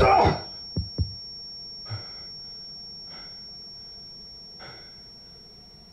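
A man's heavy, gasping breath at the start, two short low knocks about a second in, then three fainter breaths spaced out as he calms. A faint steady high whine lies underneath.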